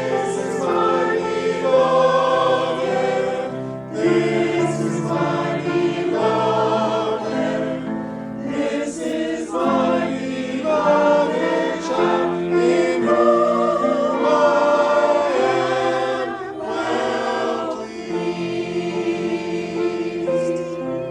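A choir singing a hymn, in phrases a few seconds long.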